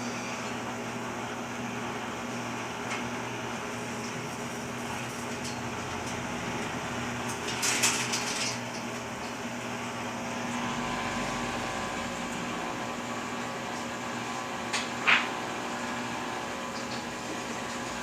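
Whirlpool 15 kg washing machine running with a steady motor hum, with a brief noisy rattle about eight seconds in and a short sharp click near fifteen seconds.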